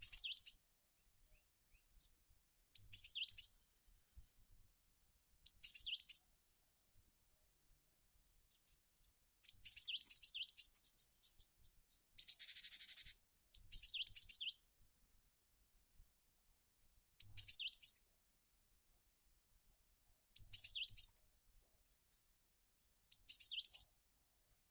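Cinereous tit (gelatik batu) calling: short bursts of high, quickly repeated notes about every three seconds, with a harsher rasping call twice.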